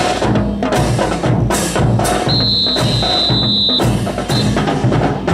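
Rhythmic percussion keeping time for a marching rifle drill team: evenly paced sharp, clicking strokes over pulsing low drum beats. A steady high tone sounds for about a second and a half near the middle.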